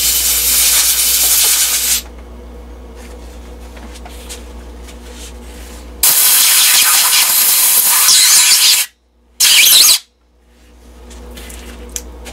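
Compressed-air blow gun blasting chips out of a freshly tapped hole: one blast ends about two seconds in, a longer blast starts about six seconds in, and a short burst follows just after it.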